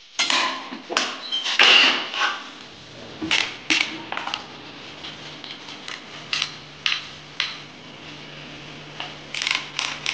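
Hand tools and metal motorcycle parts clinking and knocking while the exhaust and handlebar are being unbolted: a run of short, sharp metallic clicks and taps with gaps between them, busiest in the first couple of seconds.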